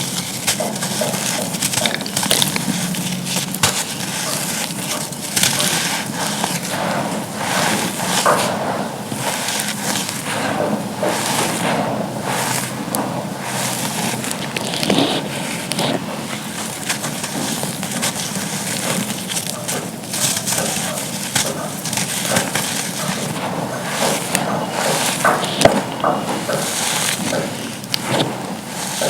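Dry charcoal chunks being crushed and crumbled: continuous gritty crunching and crackling with frequent sharp snaps, one louder snap a little before the end.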